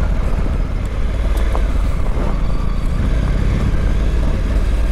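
Honda Africa Twin 1100's parallel-twin engine running steadily under way on a gravel track, with a steady rushing noise over it.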